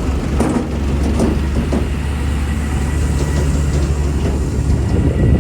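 Heavy diesel engine of a working machine running steadily with a deep hum, with a few rattles and knocks over it in the first two seconds.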